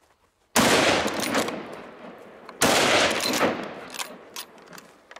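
Two gunshots about two seconds apart, each cracking out suddenly and echoing away over about two seconds: hunting guns fired at wild boar.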